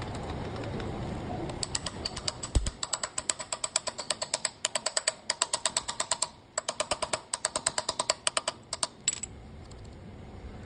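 Knurling tool rolling on a workpiece in a lathe: a rapid, regular run of metallic ticks, about eight a second, each with a ringing tone. The ticking starts about a second and a half in, breaks off briefly a few times and stops near the end.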